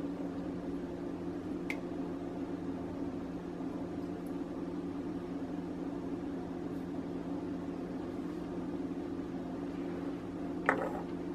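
Steady low machine hum with a few fixed tones, like a running kitchen appliance, with a faint click about two seconds in and a light knock near the end.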